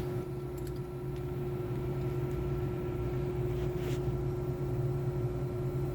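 Steady background electrical hum, with a few faint clicks as a Phillips #3 screw is turned out from inside a drill chuck.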